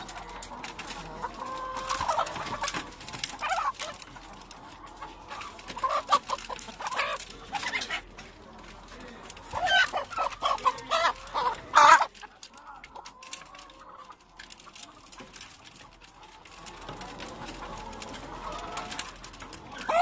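Laying hens squawking and clucking in irregular bursts as they are forced into a low-roofed broiler transport drawer, calls of panic at the handling. The calls die down for a few seconds about two-thirds in, then pick up again.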